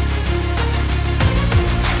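Background music with a deep sustained bass line and sharp drum hits.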